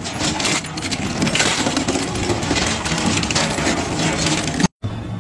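Industrial twin-shaft shredder tearing apart a small metal engine block: a steady motor drone under dense metallic crunching and cracking as the hooked blades bite into the casing. It cuts off abruptly near the end, giving way to a quieter machine sound.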